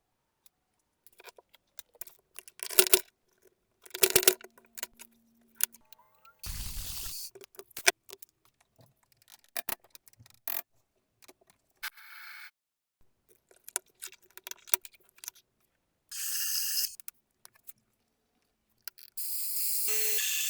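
Small metal parts being handled and worked on a bench: scattered clicks, clinks and scrapes. Near the end come two bursts of hiss, the second lasting about two seconds.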